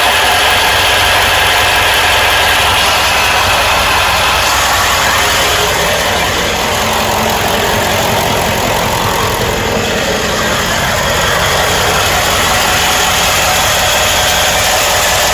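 1995 Ford E-350's 7.3-litre Powerstroke turbo-diesel V8 idling steadily. Idle is where the owner hears a strange loose-sounding noise that he cannot yet explain.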